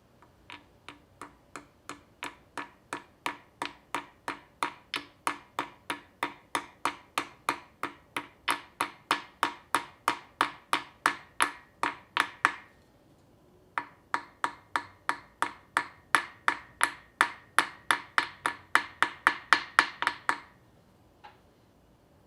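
Hammer tapping the timing-chain crank sprocket onto the crankshaft of a Toyota 22RE engine: steady strikes about three a second that grow louder, in two long runs with a short pause between, then one light tap near the end.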